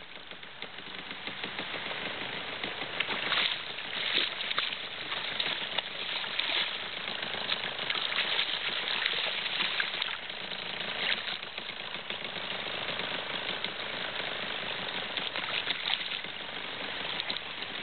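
Water splashing irregularly as a hooked salmon thrashes at the surface, sharp splashes over a steady rush of water.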